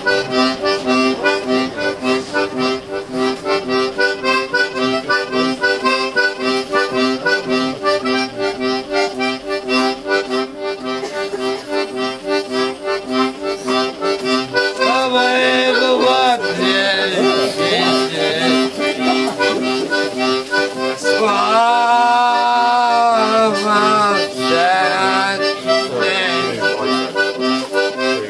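A busker's live music: a fast tune played over a steady held drone and an even pulsing bass note. A voice joins in briefly twice, around the middle and again later on.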